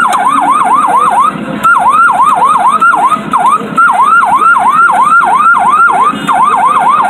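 Electronic fire-engine siren sound effect from a Falgas fire truck kiddie ride's loudspeaker. Each whoop rises in pitch and snaps back, repeating about four times a second in several short runs with brief breaks.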